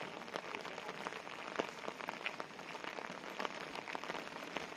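Light rain falling: an even hiss with many small, scattered ticks of drops.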